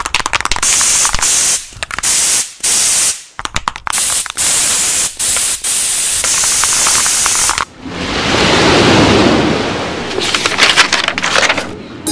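Aerosol spray-paint can hissing in a series of short and long sprays, then a whoosh that swells and fades, and a quick rattling near the end.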